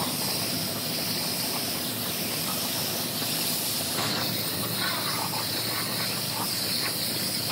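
Compressed-air paint spray gun spraying epoxy primer onto bare frame metal: one steady, high hiss of air and atomised paint that never lets up.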